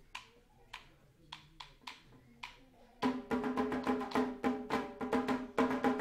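Quiet, sharp tapping, about three to four taps a second. About three seconds in, a kulintang ensemble of Mindanao comes in loudly: a row of small tuned gongs struck in quick strokes over ringing hanging gongs and drum.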